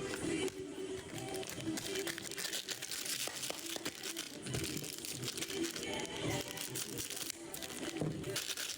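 Foil trading-card pack wrappers crinkling and rustling as they are handled and opened, a dense run of small crackles throughout, over faint background music.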